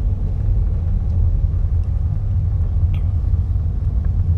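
Steady low rumble of a car driving along a road: engine and tyre noise heard from inside the moving vehicle.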